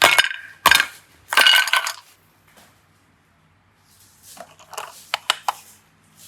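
A few sharp clinks, the third ringing briefly, then after a pause a quick run of lighter clicks and taps, like small hard objects knocking together.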